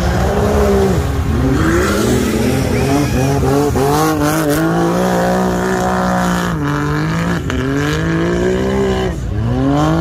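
Side-by-side UTV engine revving and running under throttle. Its pitch drops and climbs again several times as the throttle is let off and opened up, with a strong climb near the end.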